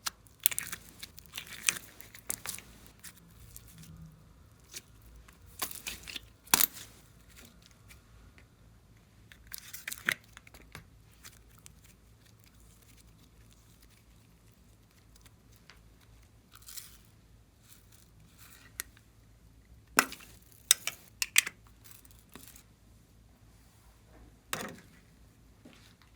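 Glossy slime being handled and mixed, making sticky clicks, crackles and small air-bubble pops in irregular clusters, with quiet stretches between.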